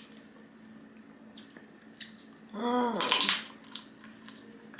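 Close-up eating of crab legs: a few faint clicks of shell being handled, then about two and a half seconds in a short hummed "mm" followed by a loud bite into the crab meat.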